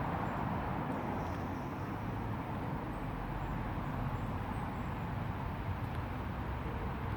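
Crumlin River flowing: a steady, unbroken rush of running water.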